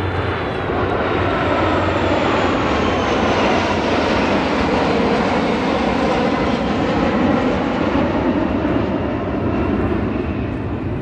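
Jet noise of the Black Eagles' KAI T-50B jets flying past in formation: a steady, loud rush with a whine that falls in pitch over the first few seconds, easing off near the end.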